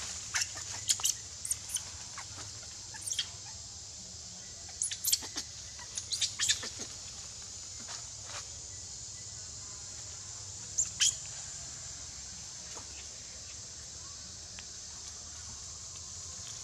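Forest sound outdoors: short, sharp chirps and clicks in scattered clusters, busiest in the first seven seconds and again as a brief pair about eleven seconds in, over a steady high hiss.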